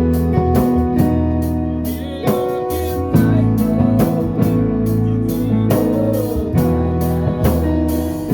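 Gospel band playing live: keyboard chords and guitar over low held notes, with a drum kit keeping a steady beat.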